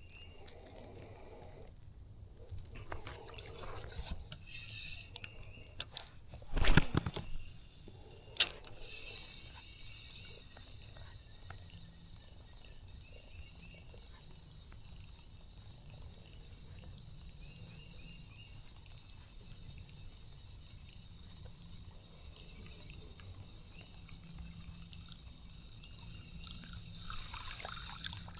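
Steady chirring of crickets and other insects over a low steady background noise. About seven seconds in comes a loud, brief knock, followed by a single sharp click a couple of seconds later.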